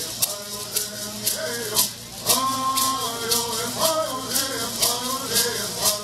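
Mohave bird songs sung in unison by a group of teenage boys, with gourd rattles shaken in a steady beat about twice a second.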